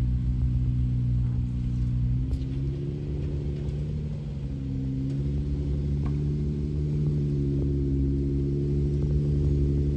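A 4x4's engine running at a steady speed, a low droning hum whose pitch shifts slightly about two seconds in, with a few faint clicks over it.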